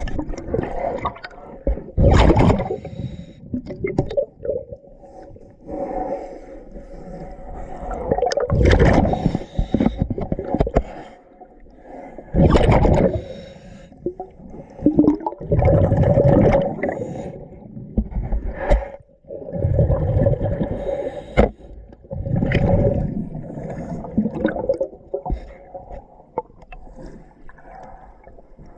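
A scuba diver's regulator heard underwater: a loud rush of exhaled bubbles every few seconds, in a breathing rhythm. Between breaths there is a lower scraping as a boat hull is scrubbed clean.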